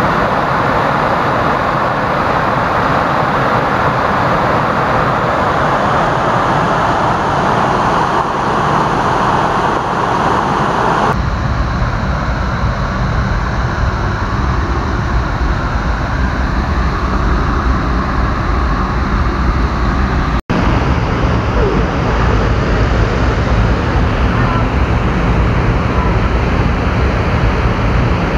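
Water pouring over a low stone mill-dam spillway: a steady rush, for about the first eleven seconds. It then changes abruptly to a low, steady rumble that runs on for the rest.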